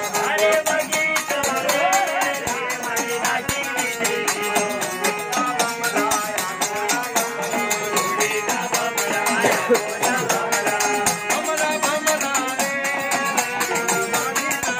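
Harmonium playing a devotional melody on sustained reed tones, with rattling hand percussion keeping a fast, steady beat.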